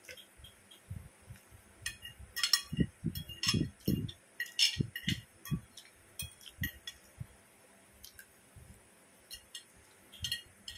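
Metal fork clinking and scraping on a ceramic plate as the last of the instant noodles are scooped up, with chewing between the clinks. The clinks come in scattered clusters, busiest in the first half.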